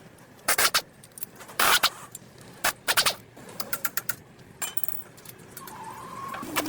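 Several sharp metallic clinks and knocks at irregular intervals, then a steadier whirring tone that starts about two thirds of the way through.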